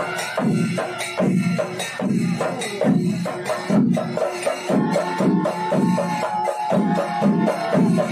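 Temple-festival percussion ensemble: drums and cymbals keep up a fast, steady rhythm with a heavy beat about every two-thirds of a second. A long held pipe note sounds above them and steps up in pitch about five seconds in.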